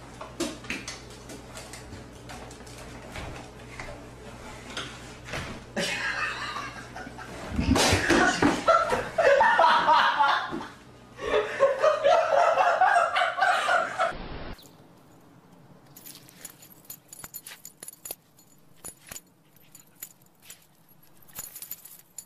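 People laughing in loud bursts over a steady low hum through the middle part. The sound then changes suddenly to a quieter stretch of scattered faint clicks and taps.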